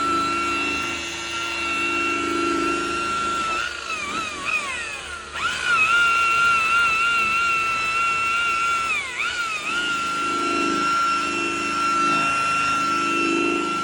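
Electric palm sander sanding a headlight lens, running with a steady high whine. Its pitch sags twice, around four and nine seconds in, and it cuts out briefly about five seconds in before spinning back up.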